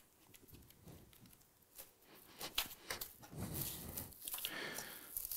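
Plastic cling film crinkling and rustling faintly as hands fold it up around a flattened disc of dough, starting about halfway through after a near-silent first half.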